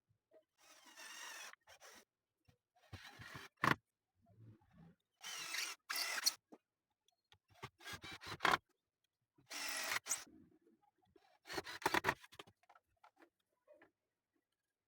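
Workshop handling sounds: about six short scraping or rubbing strokes with clicks and knocks, spaced roughly two seconds apart, with quiet between them.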